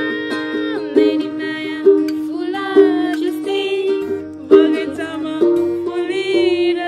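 A ukulele strummed in chords with a girl singing along to it.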